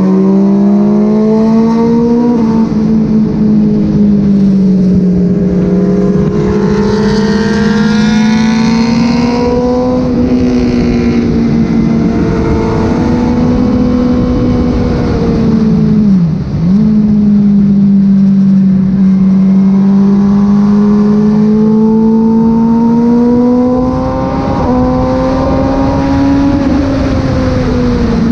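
Kawasaki ZX-6R 636 inline-four engine at part throttle during a track lap, its note rising and falling gently, with one sudden brief dip in pitch about sixteen seconds in.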